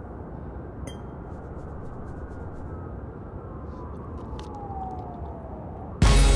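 Low steady rumbling ambience with a few faint clicks and a faint tone that glides slowly downward over about three seconds. Loud music with a heavy bass cuts in abruptly near the end.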